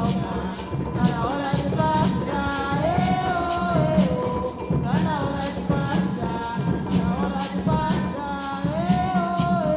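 Music: a voice singing a melody over steady percussion.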